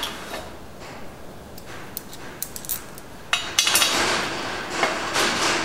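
Steel parts of a home-built car rotisserie being handled at its bearing mount: a few sharp metallic clinks about two to three seconds in, then a couple of seconds of clattering and rubbing as the arm is worked into place.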